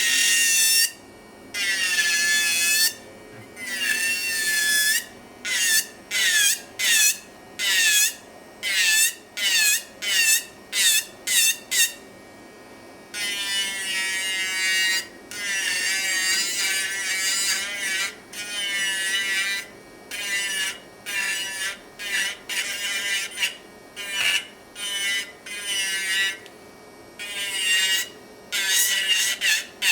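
Pelcas electric nail file running with a steady hum, broken by repeated short bursts of high-pitched grinding whine as the bit is pressed against the nail to file off product. The pitch of the whine dips slightly under load, typical of a low-powered e-file that needs pressure to cut.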